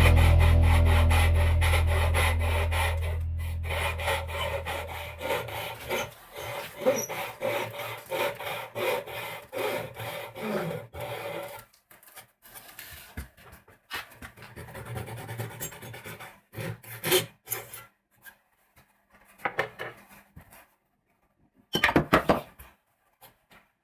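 Hand-sanding wood: sandpaper on a leveling beam rubbing in short back-and-forth strokes across a board, flattening a joint face. The strokes come thick for the first half and grow sparse later, with a low musical note fading out over the first few seconds.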